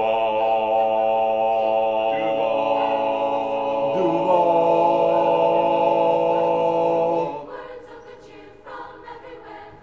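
Three men singing a long held a cappella chord in harmony, the notes shifting twice, then breaking off about seven seconds in.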